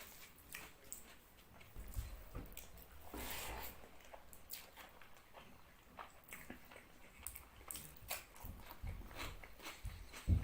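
Close-up chewing and lip-smacking of a mouthful of fish curry and rice, made up of many short wet clicks and smacks.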